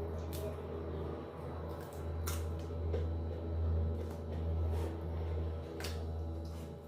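Three crisp crunches of raw vegetables being bitten, spread a few seconds apart, over a steady low hum.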